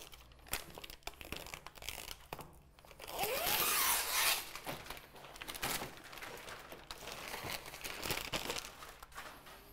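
Backing strip being peeled off the butyl adhesive of Wakaflex lead-replacement flashing, a long ripping sound about three seconds in, then the removed backing crinkled and crumpled in gloved hands.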